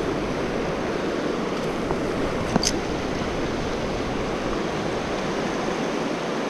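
Steady rushing of a shallow, fast river running over riffles. A brief high chirp sounds about two and a half seconds in.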